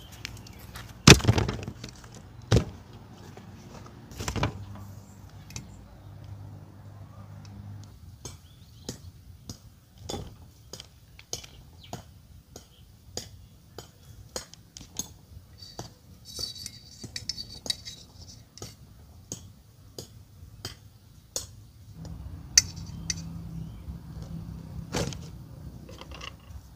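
Bamboo skewer and marinated beef strips being handled in a stainless steel bowl, making repeated small clicks and clinks against the bowl. There are a few louder knocks in the first few seconds.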